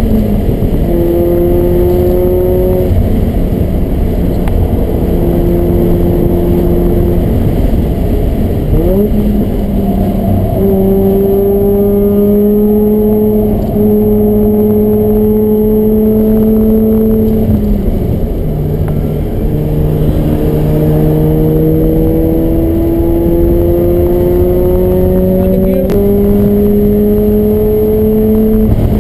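Mazda RX-8's rotary engine heard from inside the cabin, pulling hard on track through an aftermarket exhaust: its note climbs steadily in each gear and drops sharply at each shift, several times, with one quick rev blip a little before 9 s.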